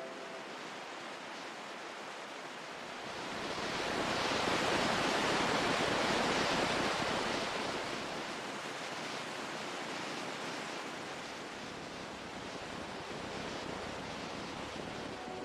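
Ocean surf: a steady wash of waves, with one swell building about three seconds in, peaking, and easing off by about eight seconds.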